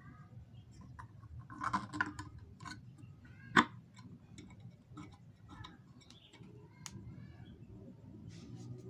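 Scattered light clicks and knocks from hands handling the 3D-printed plastic pump parts, with one sharper click about three and a half seconds in. Birds chirp faintly in the background.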